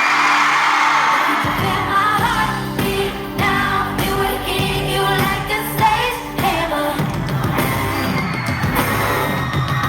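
Pop song performed live and heard through the concert PA, with a singer's vocal and a crowd screaming. Bass and drums come in about a second and a half in, and the song carries on over a steady beat.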